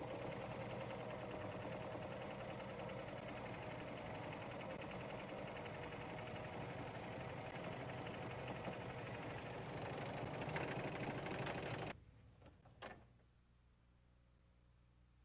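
Huskylock 936 serger running steadily as it stitches knit fabric. It stops suddenly about twelve seconds in, and a single sharp click follows about a second later.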